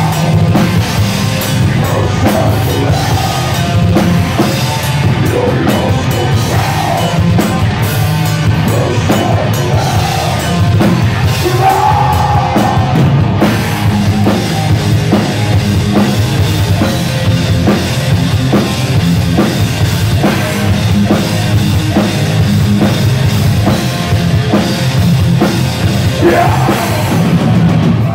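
Death metal band playing live: drum kit and distorted electric guitars, loud and continuous.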